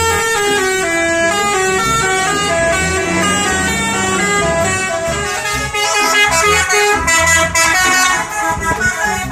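Indonesian tour bus's multi-tone musical air horn ("telolet" horn) playing a tune of short notes that step up and down in pitch.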